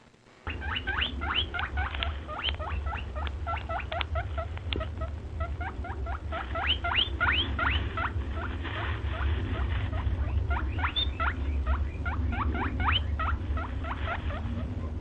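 Rapid, high-pitched squeaks from a small animal, several a second, each dropping quickly in pitch, over a steady low rumble.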